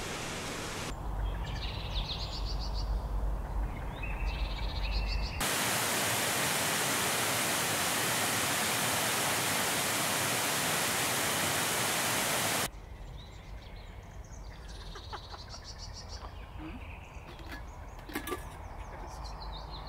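Outdoor forest ambience cut together in sections: birdsong over a low rumble, then the loud, even rush of a whitewater mountain creek for about seven seconds, then a quieter stretch with birds calling and a few sharp clicks near the end.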